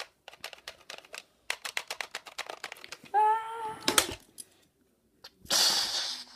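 Plastic toys clattering and clicking as hands move them quickly about, a fast run of sharp clicks. About three seconds in there is a brief high wail, and near the end a loud hissing burst.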